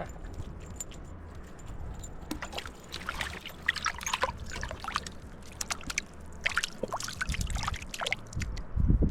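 Water splashing and trickling in short, irregular bursts.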